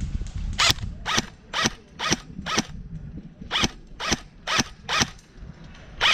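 A series of short, crisp ratcheting strokes, about two a second, in runs of five, four and two with brief pauses between.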